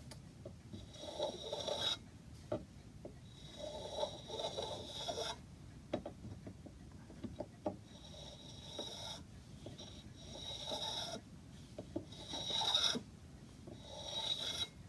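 Shoulder plane being pushed along an oak moulding in repeated strokes, each a second or two long, taking a thin shaving off the corner of a bead to round it over.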